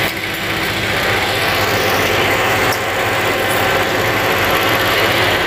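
Backhoe loader's diesel engine running steadily while its backhoe arm holds the bucket.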